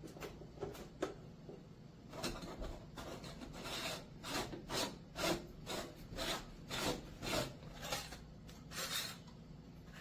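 Rhythmic scraping or rubbing strokes, about two a second, starting faintly and growing louder about two seconds in, then stopping about a second before the end.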